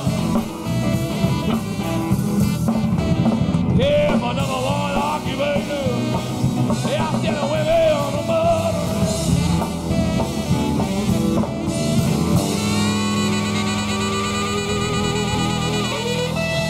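Live electric blues-rock band playing with two electric guitars, bass guitar, drums and saxophone. About twelve seconds in, the drumming thins out and the band holds long, sustained chords as the song winds down.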